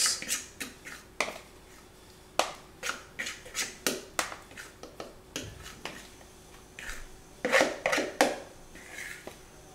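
A metal fork scraping and clinking against a bowl as thin batter is scraped out of it: a string of short scrapes and taps, loudest in a cluster near the end.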